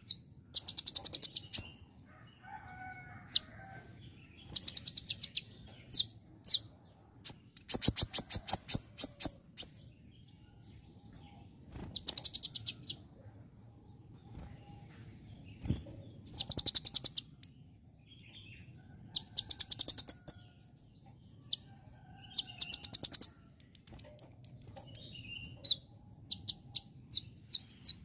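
Male kolibri ninja (konin) sunbird singing: bursts of rapid, high, ticking trills about a second long, repeated every few seconds. The title takes this loud song to be mimicry of the bar-winged prinia (ciblek).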